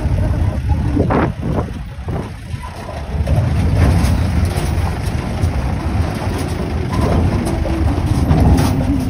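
A vehicle's engine running as it drives slowly over a rough gravel track, with a heavy rumble and a few knocks and rattles from the bumps, most of them about a second in.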